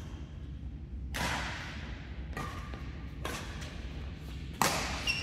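Badminton rally: racquets striking the shuttlecock four times, roughly a second apart, with the last hit the loudest.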